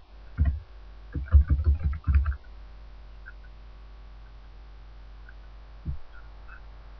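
Computer keyboard keystrokes: a quick run of about ten key presses over a second or so as a password is typed. A single click follows near the end.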